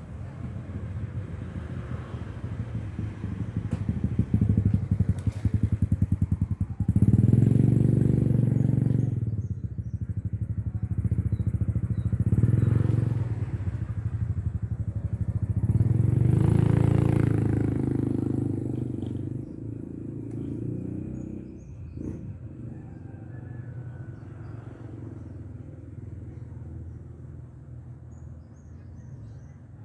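Motorcycle engine running on the move, swelling louder three times and then easing off toward the end.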